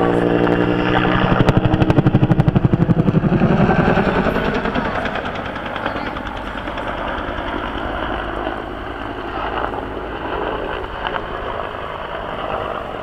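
Bell AH-1 Cobra helicopter flying past. The rotor's rapid, even thudding swells loudest a second or two in, then fades over the next few seconds into a steady broad rumble.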